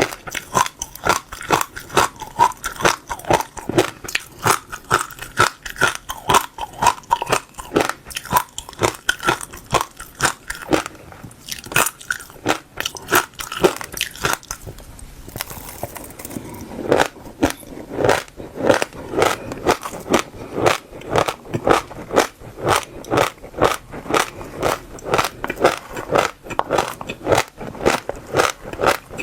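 Crunchy seeds being bitten and chewed close to the microphone, a quick run of crisp crunches about two or three a second. They ease off briefly about halfway, then come back louder.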